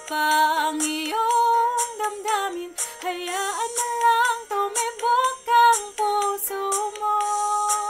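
A woman's solo voice singing a Tagalog love ballad, moving through quick melodic runs and settling into a long held note near the end.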